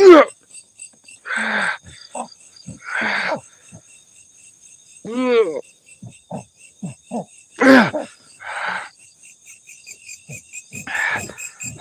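Crickets chirping in a steady, fast rhythm, with a person's wordless vocal sounds over them: a loud falling moan at the start, drawn-out groans about five and eight seconds in, and breathy exhales in between.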